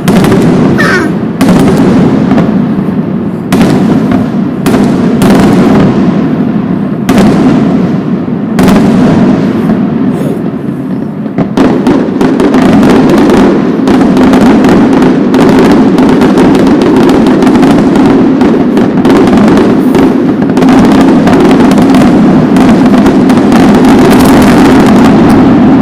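Aerial fireworks bursting in a barrage: separate booms over the first ten seconds or so, then from about twelve seconds in a dense, unbroken volley of bursts and crackles, the closing finale of the display.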